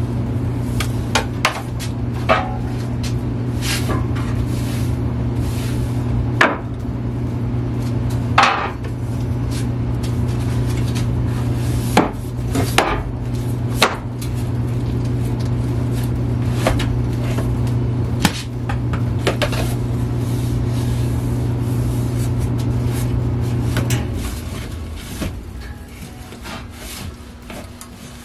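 Vacuum cleaner running with a steady hum while its hose wand knocks and scrapes along wooden shelf boards. Near the end the motor is switched off and winds down.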